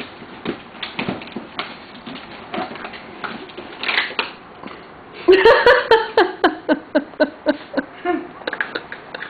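Cardboard box flaps and packing being handled, with rustling and light knocks, then about five seconds in a small handheld toy starts squeaking: a fast, even run of short, high chirps, about three a second.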